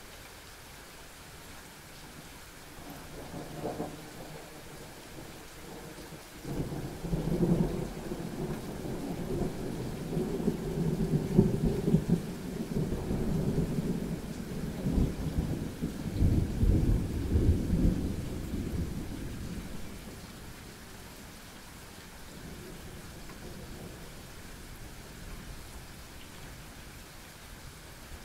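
Thunder rumbling over steady rain: a faint rumble about three seconds in, then a long, loud rumble from about six seconds in that swells twice and dies away around twenty seconds.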